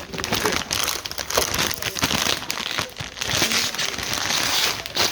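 Plastic snack bag of white cheddar fries being handled and opened, crinkling loudly with rapid crackles throughout.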